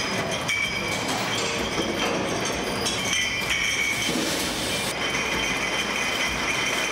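Glass bottles clinking and rattling against one another as they move along a bottling-line conveyor, with steady machine noise underneath.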